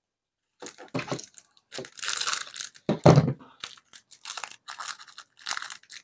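Plastic packaging crinkling and rustling in irregular bursts as small lure bags are handled.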